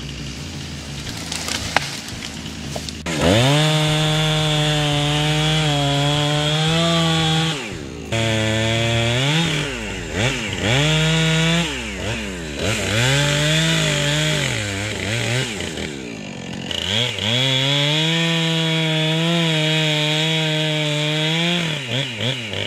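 Gas chainsaw engine running at high revs while cutting into a pine trunk. Its pitch sags and recovers several times as the chain loads up in the wood. It runs lower for the first few seconds, then revs up.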